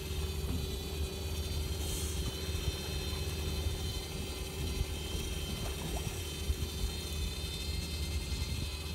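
Fishing boat's engine idling: a steady low drone, with a faint steady high whine over it.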